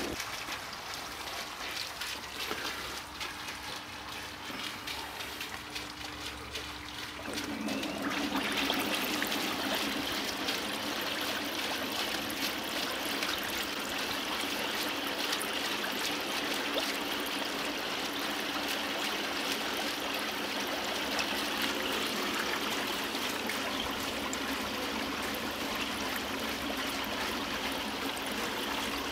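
Water bubbling and churning in a pond filter's aeration chamber, air rising through floating kaldnes filter media, over a steady low hum from the electric air pump. About seven seconds in the bubbling grows louder and fuller and then holds steady.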